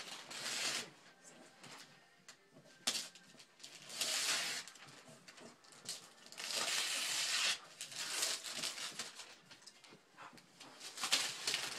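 Wrapping paper being torn and crumpled as a gift is opened, in irregular rustling bursts with a few sharp crackles between them.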